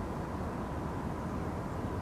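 Steady low outdoor rumble with a faint constant hum above it, and no distinct events.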